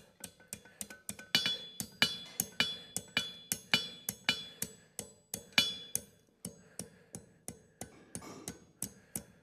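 Farrier's hammer striking a hot steel horseshoe on the anvil, about four ringing blows a second with a brief pause a little past the middle, folding the heel's jar calk back over on itself.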